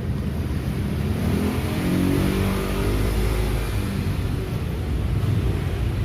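A motor vehicle's engine running, rising in pitch briefly about two seconds in.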